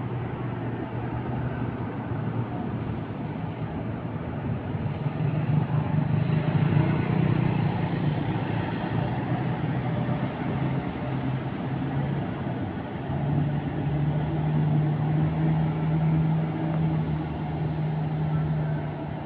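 Diesel engine of a large intercity coach running as the bus pulls away and drives off, with a steady low hum that grows louder about five seconds in and eases off a little past the middle, over general terminal traffic noise.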